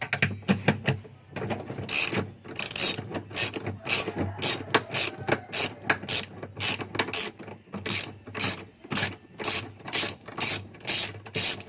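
Ratchet wrench with a 13 mm socket clicking steadily, about two clicks a second, as it backs out a bolt holding a washing machine's clutch mechanism.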